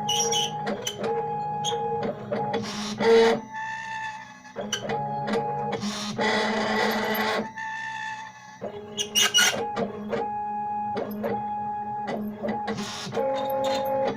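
Stepper motors of a homemade CNC machine whining as its axes move, the pitch jumping to a new steady note with each move, with short pauses between moves.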